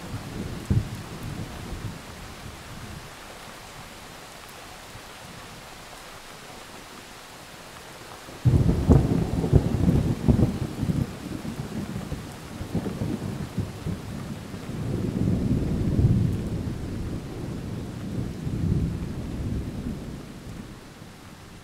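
Thunderstorm: steady rain hiss, then a sudden loud clap of thunder about eight seconds in that rolls on as low rumbling, swelling again several times before dying away near the end.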